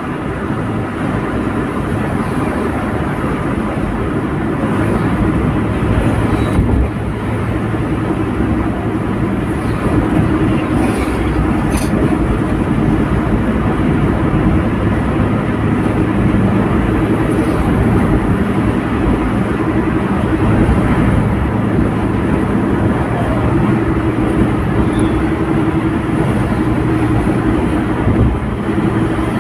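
Steady tyre and engine noise inside a car's cabin while it cruises at motorway speed, with a low, even drone.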